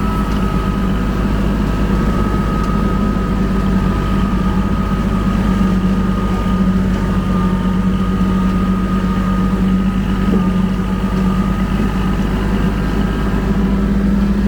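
Kubota L2501 compact tractor's three-cylinder diesel running steadily at PTO speed, driving a rotary brush mower, with a thin steady whine over the engine drone.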